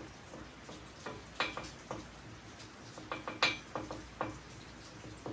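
Metal hand tools clicking and clinking as they are handled and worked at a bare engine block: about ten irregular sharp clicks, the loudest about a second and a half in and about three and a half seconds in.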